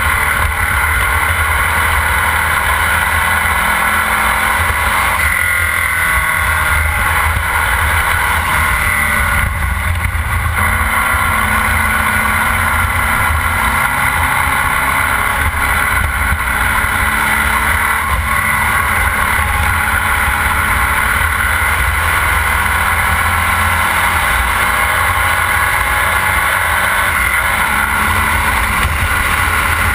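Formula Vee race car's air-cooled Volkswagen flat-four engine running hard at racing speed, heard from the cockpit. The revs rise and fall as the car works through the corners.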